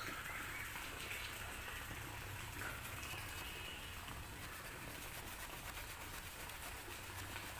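Faint, steady rasping of the small wood saw blade of a Victorinox Huntsman Swiss Army knife cutting through a thick hardwood branch.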